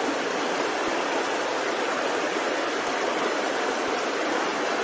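Steady rush of a river's flowing water, the current running past close by.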